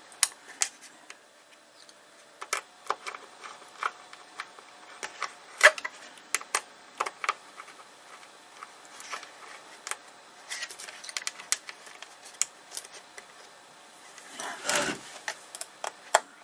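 Scattered small clicks and taps of a screwdriver, screws and parts being handled while an iMac's internal speaker is fitted back in place, with a short scraping rustle near the end.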